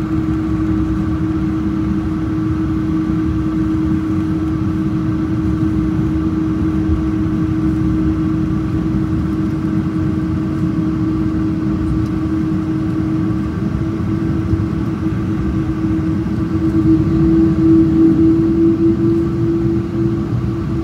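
Boeing 777 airliner's jet engines heard inside the cabin while taxiing: a steady low rumble with a steady hum over it, growing a little louder about three-quarters of the way through.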